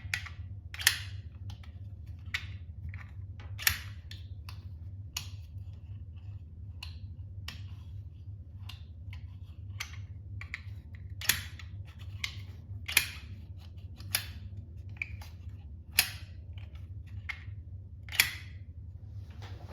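3D-printed plastic toy switchblade knife snapping open and shut, a dozen or so sharp plastic clicks at uneven intervals of one to two seconds, over a steady low hum.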